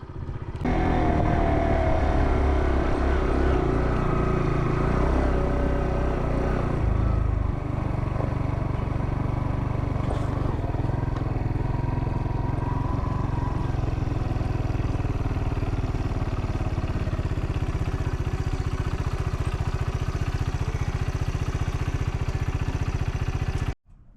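Vehicle engine and road noise while driving, heavier for the first several seconds, then a steady drone that cuts off abruptly near the end.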